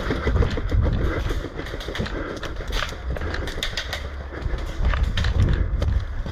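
Airsoft guns firing in quick runs of sharp clicks, answering a call for cover fire.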